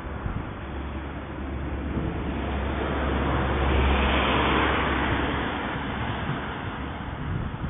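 A car passing by on the road: its engine rumble and tyre noise rise to a peak about four seconds in, then fade away.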